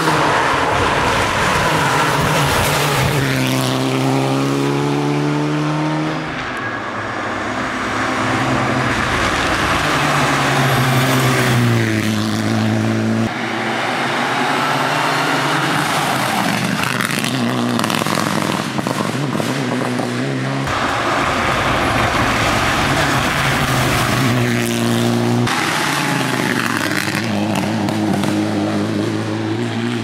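Rally cars on a tarmac special stage accelerating hard past the roadside, engines revving up and dropping back with each quick upshift. The sound switches abruptly several times as one car's pass gives way to another's.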